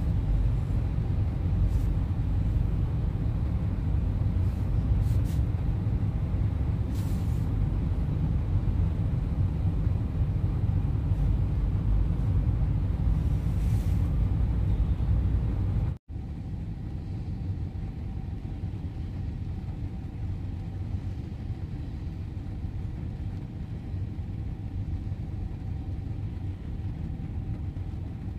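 Steady low rumble of an idling truck engine heard from inside the cab. About halfway through it cuts off abruptly and a quieter rumble carries on.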